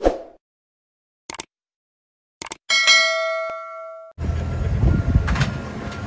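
A short hit, a few sharp clicks, then a bell-like ding that rings and fades over about a second and a half, after which a steady rumbling noise starts.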